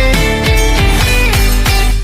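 Loud intro music with a heavy, steady beat and guitar-like melody.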